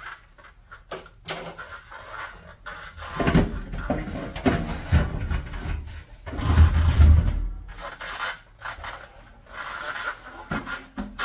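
Heavy blower assembly in its sheet-metal housing being slid and lifted out of the air handler cabinet: metal scraping and knocking, with the loudest scraping stretches about three to five seconds in and again about seven seconds in.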